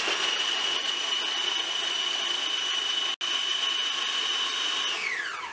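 Kenwood food processor motor running at full speed, chopping onion, garlic, ginger, green chilies and raw papaya, with a steady high whine over the whirr of the blade. It cuts out for an instant about three seconds in, and near the end the whine slides down as the motor is switched off and spins down.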